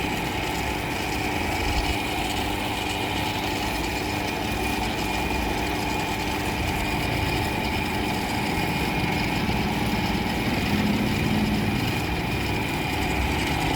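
A motor running steadily, with an even hum and no pauses.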